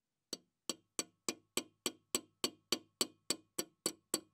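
A steady, evenly spaced run of sharp metallic-sounding taps, about three and a half a second, starting about a third of a second in, each with a short ringing tail.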